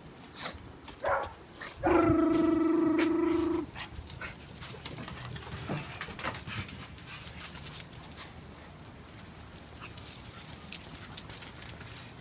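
Dogs playing on a concrete patio: scattered clicks and scuffs from paws and collars. About two seconds in comes a loud, steady single-pitched tone that lasts under two seconds and cuts off sharply.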